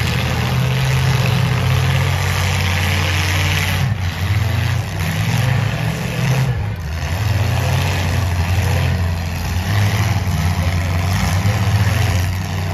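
Demolition derby car engine running loud and rough, its pitch rising and falling several times as it is revved and let back to idle.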